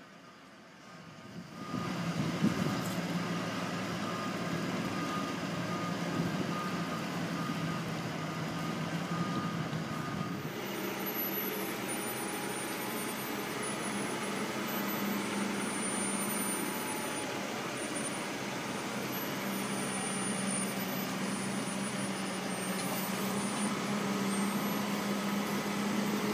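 Forklift engine running steadily under load, a low even drone, as it tows a helicopter on a tow bar. It starts about a second and a half in.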